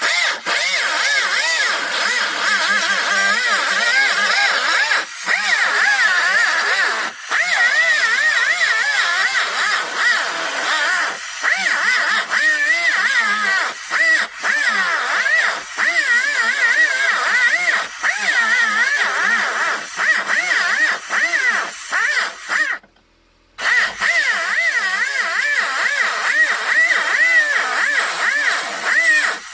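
Power cutting tool running under load as it cuts out the plastic inside a pickup's dash, its motor pitch wavering as it bites. It stops for about a second near three-quarters of the way through, then runs again.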